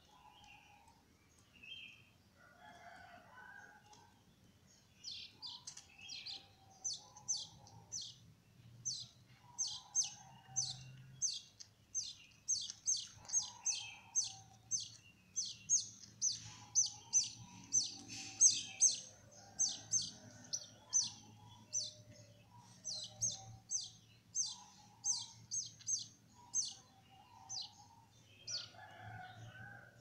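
Canary chicks, about two weeks old, begging with a long run of short, high, downward-sweeping chirps, two to three a second. The chirps start about five seconds in and stop near the end, with softer lower calls mixed in.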